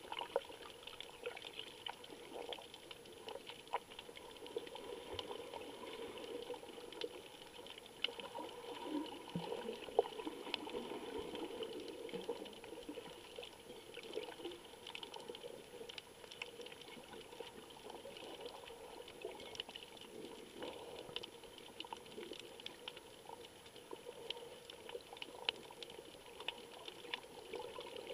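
Underwater sound picked up through an action camera's waterproof housing: a steady muffled rush of water, dotted with many small irregular clicks and ticks. The uploader puts the clicking down to the camera taking still images while it records.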